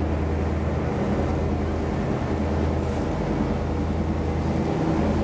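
Excursion boat's engine running steadily under way, heard from on board as an even low drone with some water and wind noise over it.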